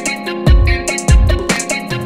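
Background music with a steady beat: deep bass hits about twice a second under held tones and a plucked melody.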